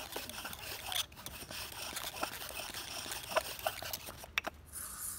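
Bow drill being worked by hand: the bow string saws back and forth, spinning a wooden spindle against a wooden fireboard, giving irregular scratchy rubbing with a few short squeaks.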